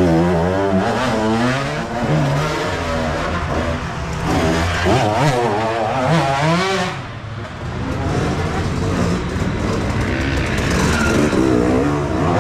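Dirt bike engines revving up and down, the pitch rising and falling as the throttle is worked. One bike passes close by, and another follows near the end.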